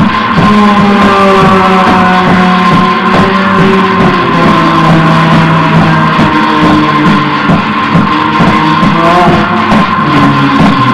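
Loud, dense noise music: several sustained droning tones layered over a constant wash of noise, steady in level throughout.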